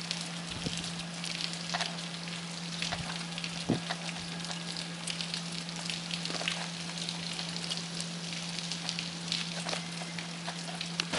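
Dense pattering of small hail pellets striking a concrete rooftop and the ground, a steady crackle dotted with many sharp little ticks.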